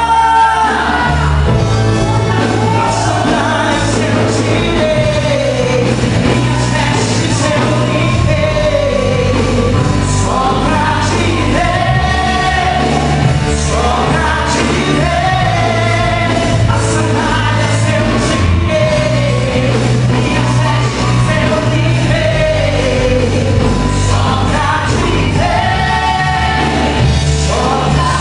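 Live gospel worship music: a full band with a steady bass and drums under a lead singer's voice, in a large hall.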